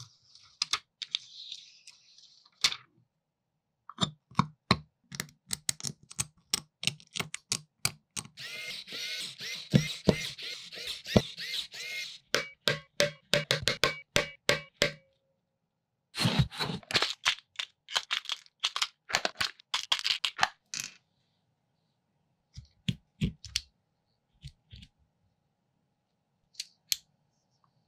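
Close-up handling sounds of assembling a metal V8 engine model kit: a rustle as backing film is peeled off a gasket, then many small clicks and taps of metal parts and a screwdriver turning screws into the engine block, with a denser run of rasping and clicking about a third of the way in. The clicks thin out to a few light taps near the end.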